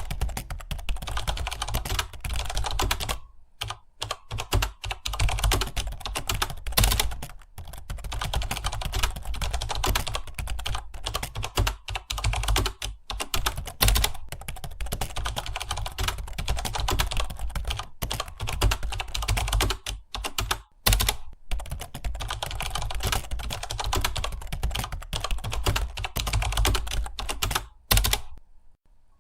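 Fast, continuous typing on a computer keyboard: a dense run of keystroke clicks with a few short breaks, one about four seconds in, one about twenty seconds in and one near the end.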